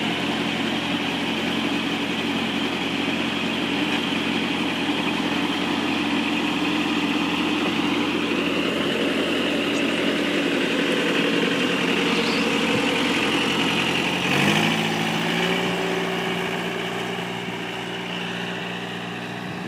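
Skid steer loader engine running steadily. Its pitch steps up about two-thirds of the way through as the engine speeds up, and the sound then eases off slightly.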